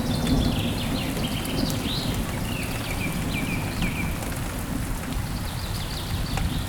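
Steady heavy rain with a deep rumble underneath. A bird calls over it in a run of short notes that step down in pitch over the first few seconds, then starts again near the end.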